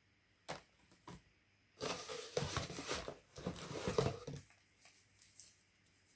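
Handling sounds of small diecast models and their plastic packaging: two light clicks, then about two and a half seconds of rustling and scraping, then a few faint clicks.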